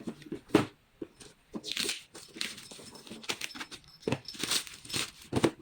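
Shoe packaging being handled: crinkling and rustling in two longer stretches, with scattered clicks and a few dull knocks as the shoes are set down.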